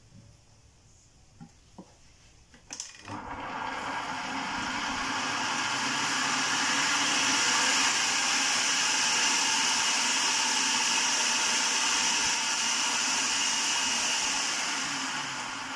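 Electric food processor: a click, then the motor starts about three seconds in and runs steadily, churning egg mixture and oil into mayonnaise. It starts to wind down near the end.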